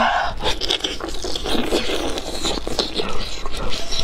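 Close-up eating of braised pork intestines: biting and chewing, with a dense run of quick, irregular clicks and smacks, and gloved hands pulling the pieces apart.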